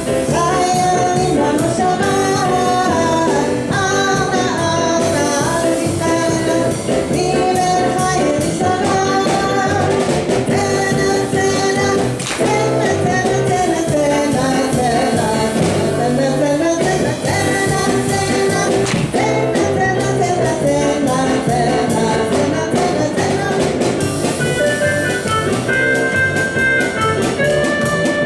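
Small live band playing a lively hora medley of traditional Jewish dance music: electric keyboard with a woman singing the melody into a microphone.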